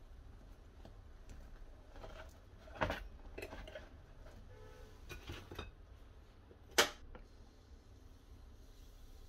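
Metal cutlery clinking and scraping against an electric waffle iron's plates as cooked waffles are lifted out, with one sharper clack about seven seconds in.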